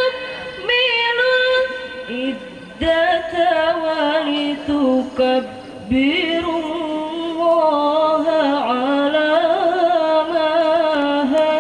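A girl's solo voice in melodic Quran recitation (tilawah), long drawn-out notes with wavering ornaments, in several phrases broken by brief pauses for breath.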